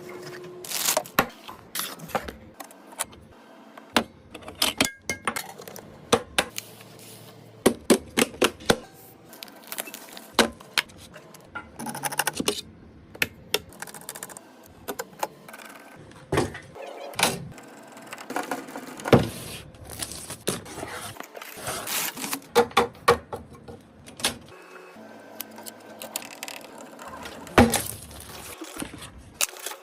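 Irregular clicks, taps and knocks of computer parts and a PC case being handled and fitted together during assembly, with background music.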